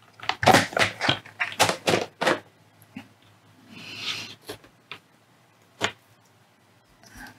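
Hands handling small parts on a cutting mat: a quick run of clicks and knocks over the first couple of seconds, a brief rustle about four seconds in, and one sharp click near six seconds.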